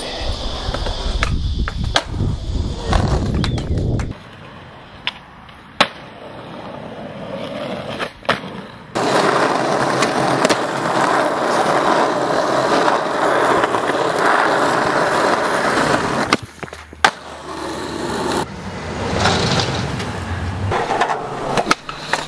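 Skateboard wheels rolling on concrete and asphalt, a steady rough rolling noise that drops out and comes back a few times, broken by several sharp clacks of the board popping and landing.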